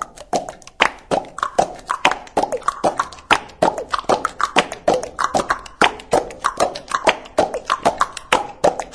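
Fast, rhythmic percussive clicks and pops, about six a second, each with a short pop that drops in pitch.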